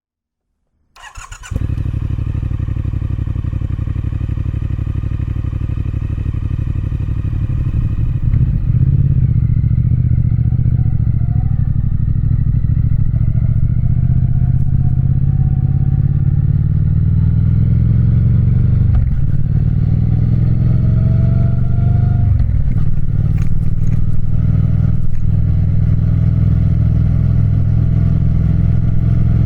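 Triumph Speed Twin's parallel-twin engine starting up about a second in, then running steadily. It gets a little louder at about eight seconds, with brief dips twice later on.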